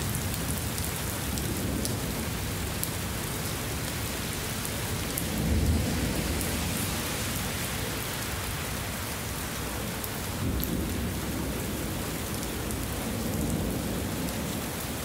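Heavy rain pouring steadily, with low rumbles of rolling thunder swelling up a few times. The loudest rumble comes about five and a half seconds in.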